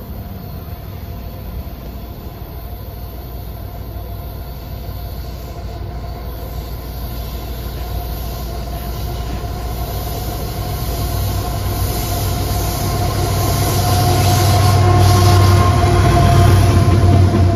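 CSX freight train's diesel locomotives approaching and passing directly below, the engine drone growing steadily louder and peaking near the end, with thin steady higher tones joining it over the last few seconds.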